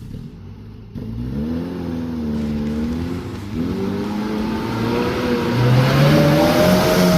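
Off-road 4x4's engine revving. It gets louder about a second in, rises in pitch, dips briefly midway, then climbs to its highest and loudest near the end.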